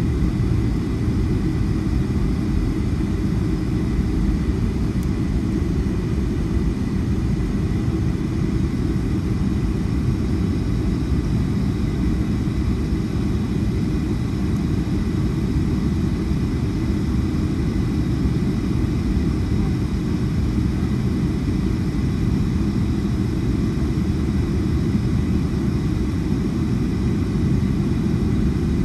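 Steady low rumble of a Boeing 757-300 with its Rolls-Royce RB211 engines running, with a faint steady high whine over it. The level does not change.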